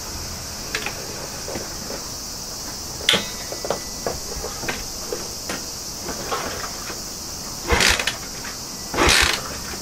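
Honda Dream50's 50 cc single-cylinder engine being kicked over several times without firing. Each kick is a short burst of the engine turning over, and the two loudest come near the end. Insects chirr steadily behind.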